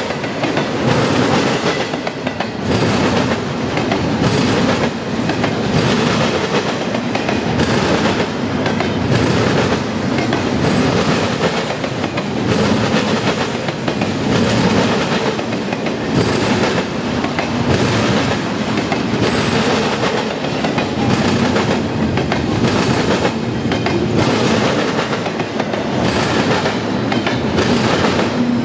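A CSX double-stack container train's well cars rolling past: a steady rumble and rattle of steel wheels on rail, with regularly repeating wheel clicks over the rail joints.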